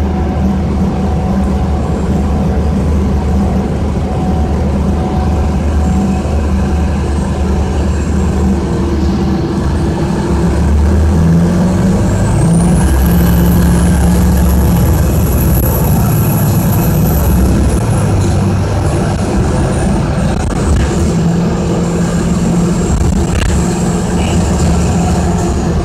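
Detroit Diesel engine of an Orion VII transit bus running while the bus drives, heard from inside the cabin near the rear. About twelve seconds in it pulls harder and gets louder, and a high whine rises, holds for several seconds, then slowly falls away.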